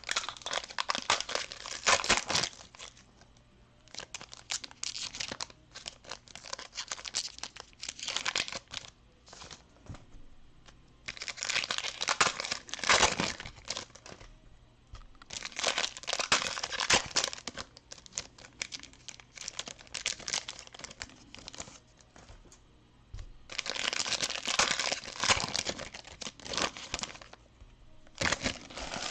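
Wrappers of Panini Prizm Premier League trading card packs crinkling and tearing as the packs are ripped open and handled. The noise comes in spells of a few seconds with quieter gaps between.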